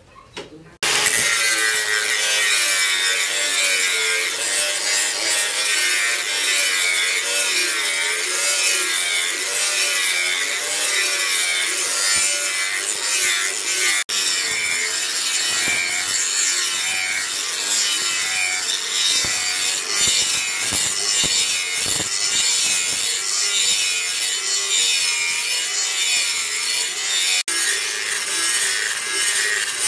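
Handheld electric angle grinder with an abrasive disc grinding a spring-steel billhook blade. It starts abruptly about a second in and runs steadily, its whine wavering as the disc bites into the steel, with two very brief breaks.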